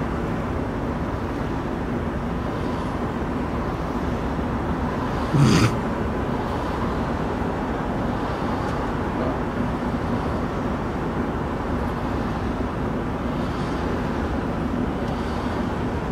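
Steady vehicle noise heard from inside a van's cabin: a low engine hum under an even rush of noise. One brief, louder sound about five and a half seconds in.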